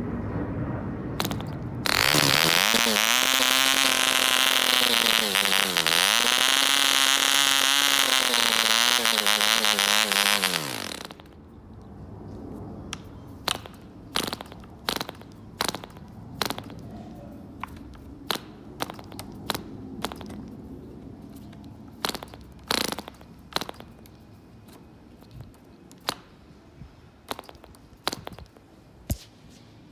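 Russian copy of an Elfin 1.49 model diesel engine with an ABC piston, running flat out with its propeller: a loud high-pitched buzz, muffled for the first two seconds, that sags in pitch briefly around six seconds in, then runs down and stops about eleven seconds in. After that the propeller is flicked over by hand again and again, a string of sharp separate clicks and pops as the engine turns over without catching.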